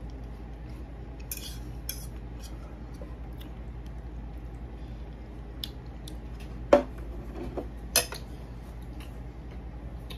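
Fork clinking and scraping against a plate while eating spaghetti: scattered light clicks, with two sharper clinks about seven and eight seconds in, over a steady low hum.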